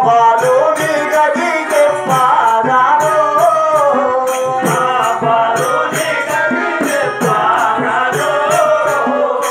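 Live stage music: a singer's melody over a hand drum, with jingling hand percussion keeping a steady beat.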